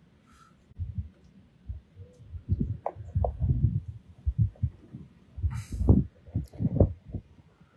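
Gusty storm inflow wind buffeting the microphone in irregular low thumps, several a second.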